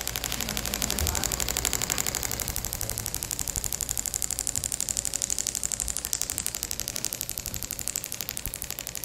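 Radial pressure wave (shockwave) therapy handpiece firing against the skin: a rapid, even stream of sharp clicks with a low hum underneath.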